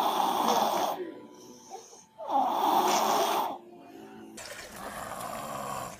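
A baby snoring loudly, with two long snores about two seconds apart. About four seconds in, the snoring gives way to a quieter background.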